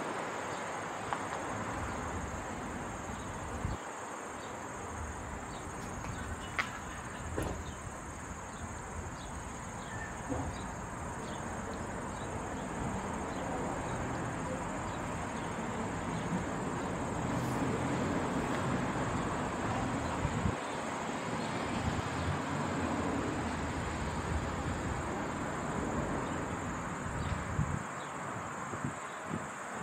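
Outdoor ambience: wind gusting on the microphone, with a steady high-pitched insect chirring over it.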